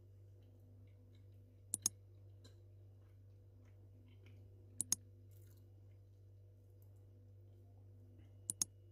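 Three mouse-click double clicks, about three seconds apart, over a low steady hum: the click sound effect of an on-screen like, subscribe and bell animation.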